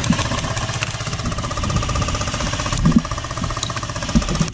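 Airsoft gun firing on full auto in one long sustained burst: a rapid, even rattle of shots with a steady whine underneath.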